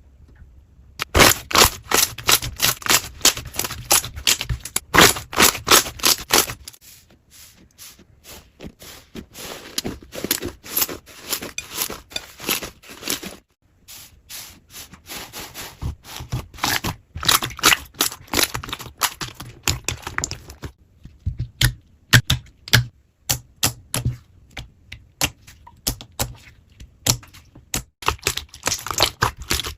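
Slime being squished and worked, making rapid sticky clicks and crackling pops, in several short stretches with abrupt breaks between them.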